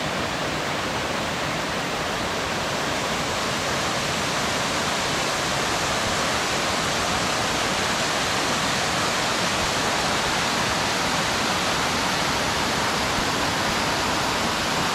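Waterfall cascade, water rushing steadily and loudly.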